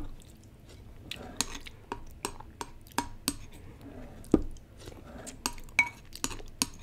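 White ceramic soup spoon clinking and scraping against a porcelain bowl while scooping noodle broth: a string of irregular light clinks, some with a brief ring.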